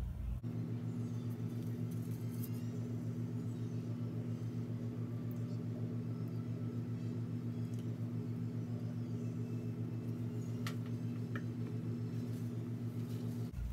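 A steady mechanical hum with an even pulsing, like a motor running. It shifts in pitch about half a second in and shifts back just before the end, with two faint clicks near the end.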